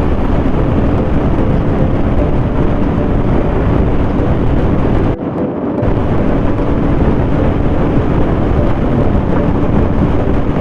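Motorcycle running at speed with heavy wind noise on the microphone, a steady rush with a faint engine tone underneath. The noise drops out briefly about five seconds in.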